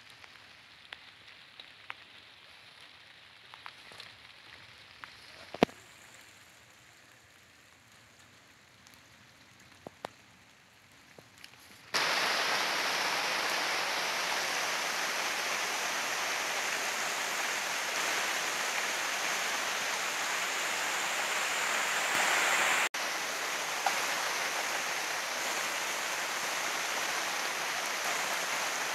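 Quiet with a few small ticks for about twelve seconds, then a sudden, steady rush of running water, broken once by a brief dropout.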